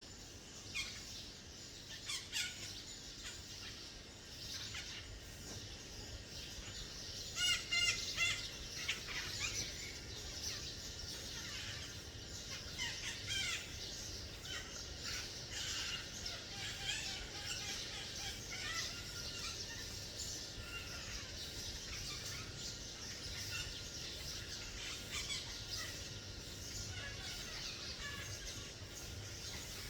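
Red-breasted parakeets calling: many short calls overlapping throughout, with the loudest cluster of calls about eight seconds in.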